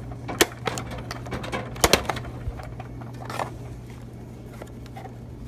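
Sharp plastic-and-metal clicks and clatter from a vending machine's bill validator and cash box being worked to get the dollar bills out, the loudest clacks about half a second and two seconds in, over a steady low hum.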